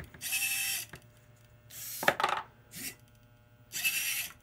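Servo motors of a small desktop robotic arm whirring in three short bursts as the arm swings and grips, with a sharp clack about two seconds in.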